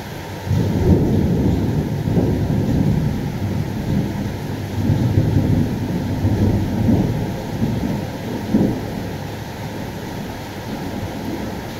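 Thunder rumbling: a sudden low clap about half a second in that rolls on in several swells for about eight seconds, then fades, over the steady hiss of rain.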